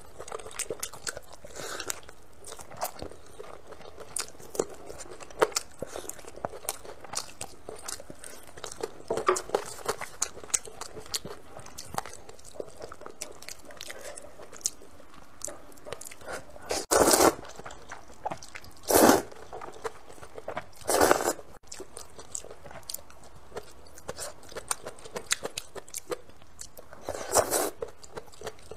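Close-up eating sounds of a person eating a bowl of rice noodles with spicy meat: steady chewing and small wet mouth clicks, with four louder slurps of noodles, three in quick succession past the middle and one near the end.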